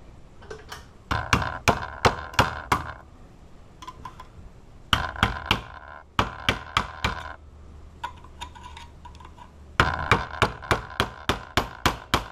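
Rapid metal-on-metal knocks on the cut halves of a Master Lock 185D padlock, in three runs of about four blows a second with a ringing tone: the lock body is being hammered to get at the lock cylinder inside.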